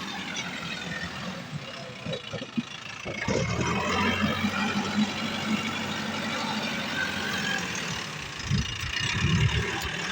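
Diesel engine of a JCB backhoe loader running, rising in pitch and growing louder about three seconds in as it works harder.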